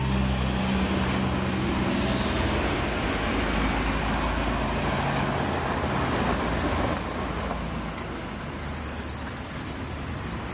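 Cars driving past at close range, first classic sports cars with their engines humming and then a modern saloon, a steady mix of engine and tyre noise. It grows quieter about seven seconds in as the traffic moves away.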